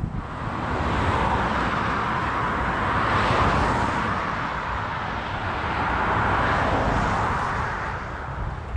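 Road traffic on the lane below: tyre and engine noise of passing cars swelling and fading twice.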